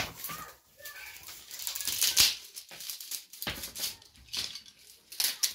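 Bundles of dry broom straw rustling and rattling as they are handled and shaken while being made into a hand broom. It comes as an irregular run of crisp, scratchy strokes, loudest about two seconds in.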